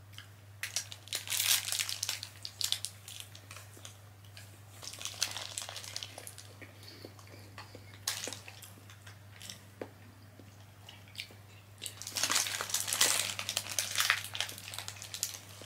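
Paper sandwich wrapper crinkling in bursts as it is handled, with chewing and bites of the sandwich between, over a steady low hum.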